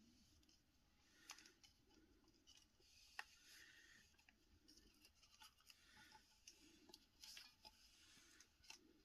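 Near silence with faint handling sounds of a sculpted collector's Blu-ray box: a few soft clicks and rustles as its lid is lifted, the sharpest click a few seconds in.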